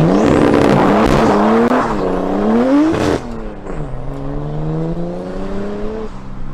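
Nissan Skyline R33's straight-six engine at full throttle as the car launches hard and accelerates away, revs climbing. The revs drop sharply about three seconds in and then climb again more slowly, fading as the car pulls away.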